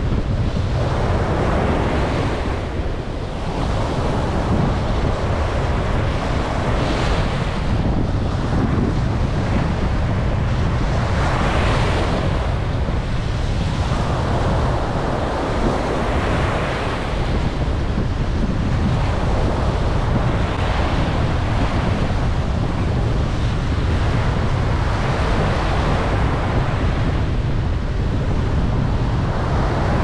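Ocean surf breaking and washing up a sandy beach, swelling in loudness every few seconds, with wind rumbling on the microphone.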